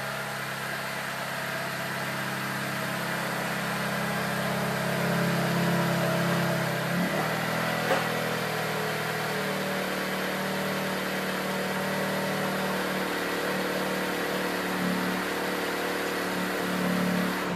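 A 2018 Honda Civic hatchback's 1.5-litre turbocharged four-cylinder running at low revs as the car creeps forward, with a steady hum. Its pitch steps down about seven seconds in, and there is a single click about a second later.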